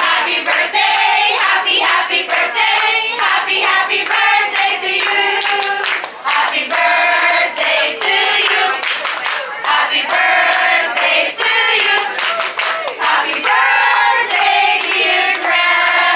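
A group of waitstaff singing together in chorus to a diner at the table, clapping their hands along with the song.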